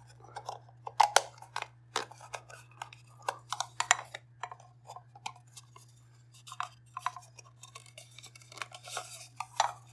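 Irregular clicks, taps and short scrapes of hard plastic as a cheap mechanical kitchen timer's casing and parts are pried apart and handled.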